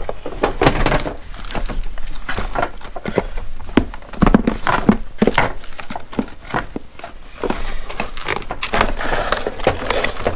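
Cardboard box and plastic packaging being handled, with irregular rustling, crinkling and light knocks.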